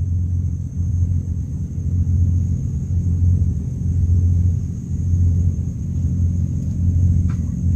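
A steady low rumble that swells and fades in slow waves, with a faint steady high-pitched hiss above it and a small click near the end.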